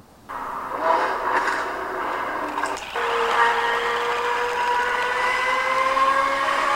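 LaFerrari engine sound, a steady whine with several pitched layers that climbs slowly in pitch. It comes in after a brief break right at the start and gets louder about three seconds in.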